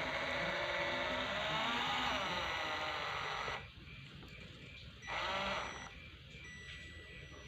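Radio-controlled truck's electric motor and gearbox whining, the pitch rising and falling with speed, cutting off suddenly after about three and a half seconds. A second short whine follows a little later.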